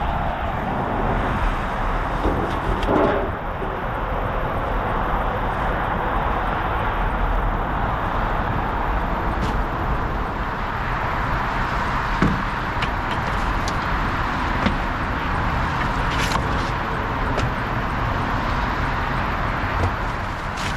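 Steady motor-vehicle road noise, with a few light knocks.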